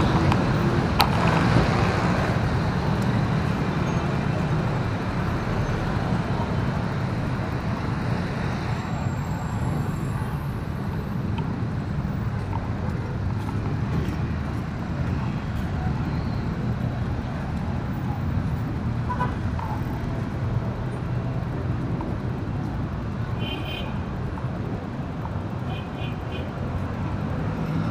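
Heavy road traffic: a steady rumble of passing cars and engines, with a few short high chirps near the end.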